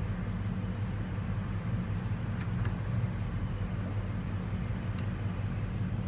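1996 Chevrolet Impala SS's 5.7-litre LT1 V8 idling steadily with a low, even note.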